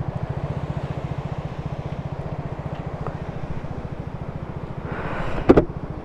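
Single-cylinder KTM Duke motorcycle engine idling with an even, steady pulse. A sharp clunk comes about five and a half seconds in, after which the idle sounds fainter.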